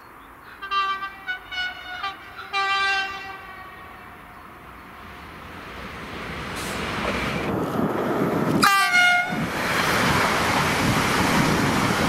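French electric commuter train sounding its horn: a quick string of short toots, then a longer blast. The rail noise then builds as the train comes close, and a second horn blast, dropping in pitch, sounds as it passes, followed by loud wheel and rail noise.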